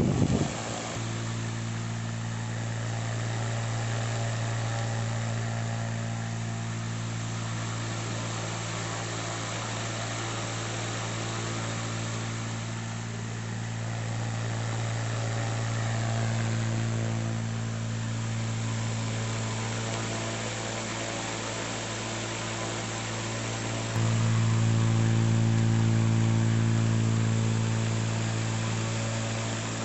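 Small electric motor of a homemade oscillating fan running with a steady hum and an even hiss. It starts with a brief loud burst and gets louder suddenly about 24 seconds in.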